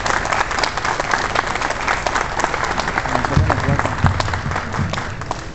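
Audience applauding, with many hands clapping at once; the clapping dies down near the end. A couple of low thumps come through about halfway.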